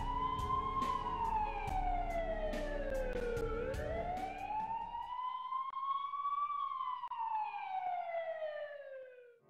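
Ambulance siren in a slow wail, its pitch rising and falling twice over, each sweep taking about three seconds, then fading out at the end.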